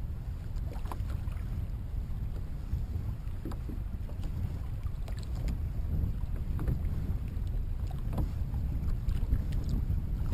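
Wind buffeting the microphone in a low rumble, with choppy sea water lapping and slapping irregularly against a kayak's hull.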